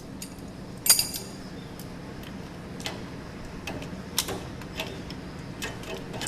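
Scattered small metal clicks and taps of hand tools loosening a nut on a washing machine's door lock switch, the loudest about a second in, over a low steady hum.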